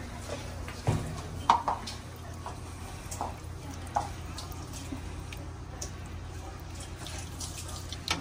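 Metal spoon stirring gumbo in a large stainless-steel stockpot: liquid sloshing, with a few light clinks and taps of the spoon against the pot, the sharpest about a second and a half in. A steady low hum runs underneath.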